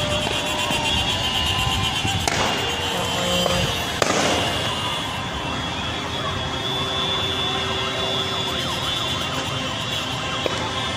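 Loud, dense noise of a crowded street, with sharp bangs a couple of seconds in and the loudest about four seconds in.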